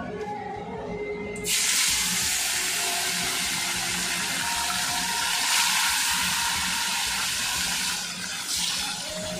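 Whole bata fish deep-frying in a kadai of hot oil: a loud, even sizzle that starts suddenly about one and a half seconds in and eases near the end, as a spatula turns the fish.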